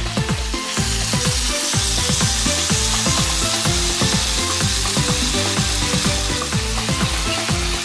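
Pork back ribs in spicy sauce sizzling in a stainless pan as the sauce reduces and they are turned with tongs, the sizzle rising about a second in. Background music with a steady low beat plays underneath.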